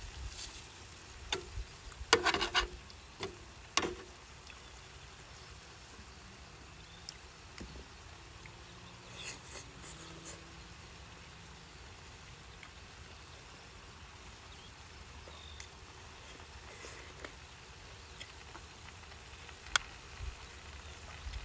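Low, steady wind rumble on the microphone, with scattered knocks and clatter of things being handled, most of them about two to four seconds in and again around ten seconds.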